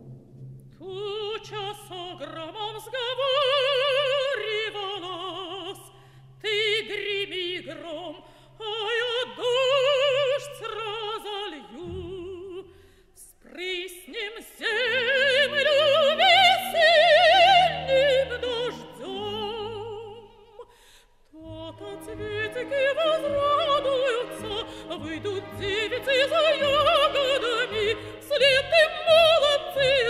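Operatic solo singing with strong vibrato over an orchestra, in long sustained phrases with short breaks about twelve and twenty seconds in.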